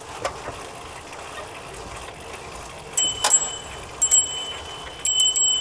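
A small metal chime struck several times in quick clusters, starting about three seconds in, each strike ringing briefly with a clear high pitch.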